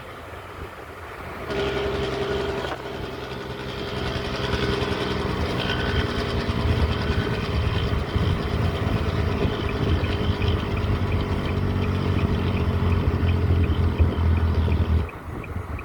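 Dump truck's diesel engine with its Jake brake (engine compression brake) on, a loud rattling bark from the exhaust. It starts abruptly about a second and a half in, grows louder, then cuts off sharply near the end.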